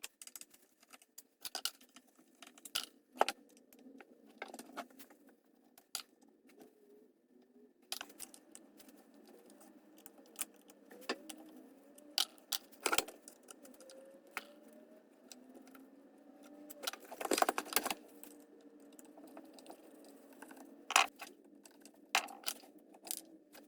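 Irregular clicks and clatter of hand tools and parts being handled while a Ryobi BC30 string trimmer is taken apart, with a denser rattle about seventeen seconds in.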